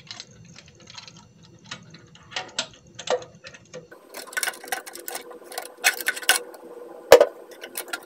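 Plastic dual flush valve clicking and scraping against the ceramic toilet tank as it is set into the outlet and worked into place by hand. Scattered clicks at first, then denser rattling scrapes from about halfway, with one louder knock near the end.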